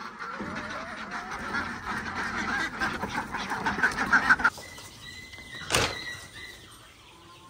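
A flock of domestic ducks quacking loudly together, stopping abruptly about four and a half seconds in. A single sharp knock follows about a second later.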